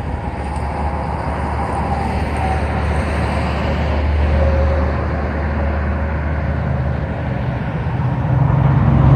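Road traffic crossing the bridge: a steady rumble of passing vehicles that swells about halfway through, with another vehicle's engine growing louder near the end.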